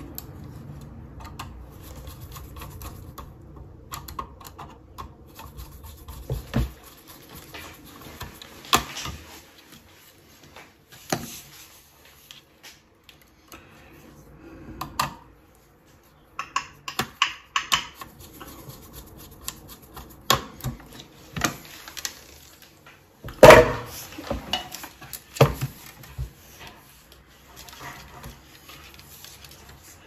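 Small clicks, taps and scrapes of wires being handled and a screwdriver working the screw terminals on an alarm keypad's circuit board, with one louder knock about three quarters of the way through.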